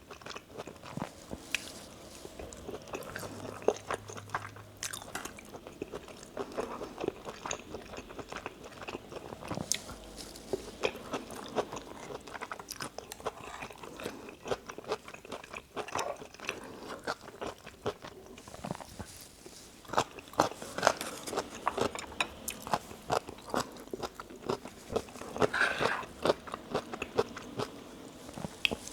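Close-miked chewing and biting of spicy Korean stir-fried chicken (dakgalbi) and rice, a steady irregular run of many small mouth clicks, busier in a couple of stretches.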